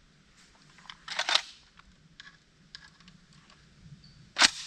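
The action of a KUSA KR103 AK-pattern rifle being worked after a failed round: a short metallic clatter about a second in, a few light clicks, and a sharp, loud snap about four and a half seconds in.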